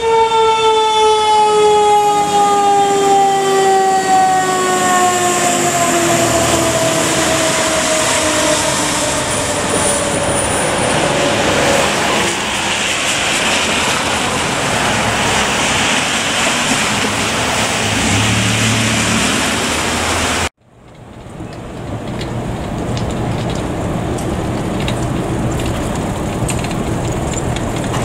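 A fire engine's siren winding down, its pitch falling slowly and smoothly over about twelve seconds, over the steady noise of the truck and traffic on a wet street. About twenty seconds in the sound cuts off abruptly, and a steady low engine rumble follows.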